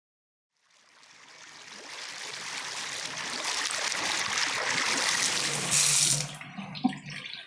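Water from a kitchen tap running into a sink, fading in slowly from quiet. The splashing builds to its loudest about six seconds in and then drops away as a red bell pepper is rinsed under the stream.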